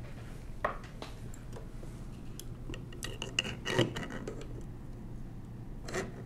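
Scattered small metallic clicks and clinks of a screwdriver working against the steel parts of a 1920s Monroe mechanical calculator's mechanism, prying at a tight-fitting part. The loudest clink comes about four seconds in.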